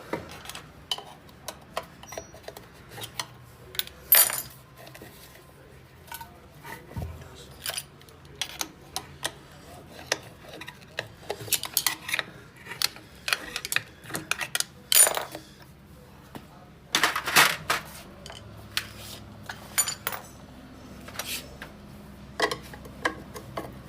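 Irregular metallic clinks and knocks of hand tools and metal parts being handled and set down, with louder clanks about four, fifteen and seventeen seconds in.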